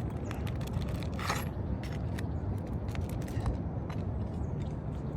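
Flat pry bar scraping and ticking against asphalt roof shingles and nails while prying out nails: a few short clicks and one longer scrape about a second in, over a steady low rumble.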